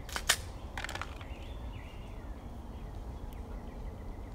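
A few sharp clicks of a pistol being dry-fired on an empty chamber, two close together near the start and a quick cluster about a second in. Under them is a steady low rumble, and a faint high warbling tone comes in the middle.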